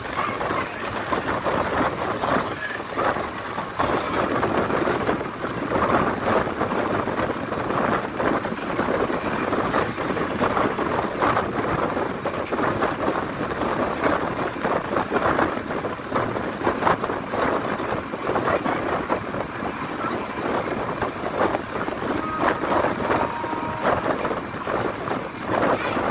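Passenger train running at speed at night: a steady rush of wind and rolling noise, with wheels clattering over the rails in quick irregular clicks.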